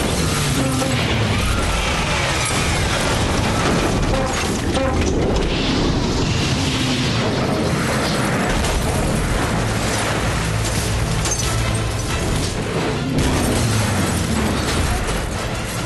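A Ford Capri Mark II blowing up and rolling over: booms and crunching, tumbling metal, with music underneath.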